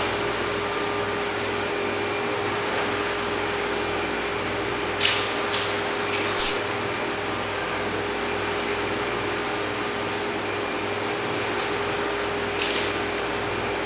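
Steady mechanical hum of aquarium equipment, with a constant drone tone, a low pulsing two or three times a second, and an even hiss. Short hissy bursts come a few times, about five to six and a half seconds in and again near the end.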